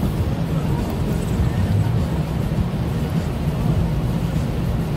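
Steady car-cabin road noise while driving on a wet road: a low rumble of engine and tyres with an even hiss from the wet pavement.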